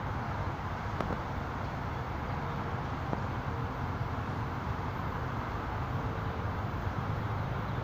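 Steady low rumble of distant vehicles, with two faint clicks about one and three seconds in.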